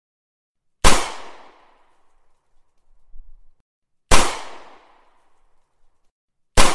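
A recorded .40 Smith & Wesson pistol gunshot sound effect played three times: sharp cracks about a second in, about four seconds in and near the end, each dying away in a short echoing tail.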